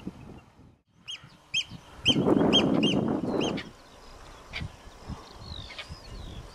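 A bird calling a quick series of about six sharp, arched notes, roughly two a second, with a few more calls later. A loud rush of noise runs under the middle of the calls.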